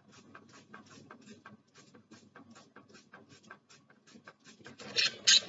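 Small finger-pump spray bottle being worked over and over, misting vitamin C water into a budgie cage: a rapid run of faint clicks and puffs, with two louder sprays near the end.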